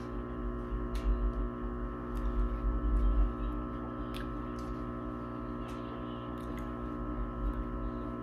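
A steady drone of several held tones, like ambient relaxation music, with low rumbling during the first three seconds or so and a few faint clicks.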